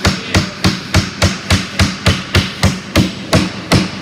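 Claw hammer driving a nail into a wooden drawer board with quick, even strikes, about three or four a second.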